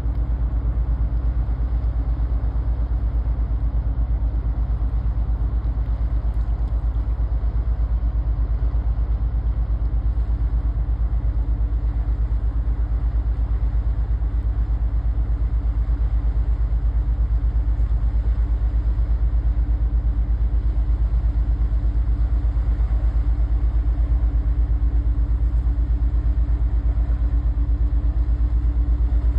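A ship's engine running steadily, a deep even throb with no change in speed.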